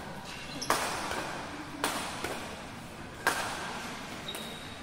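Badminton rackets striking the shuttlecock in a rally: three sharp smacks a little over a second apart, each with a short echo, then a fainter tick near the end.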